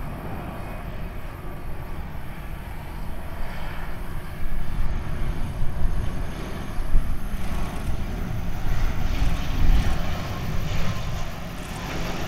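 ATR twin-turboprop airliner on final approach to land, its engine and propeller noise growing louder about four seconds in as it comes in low.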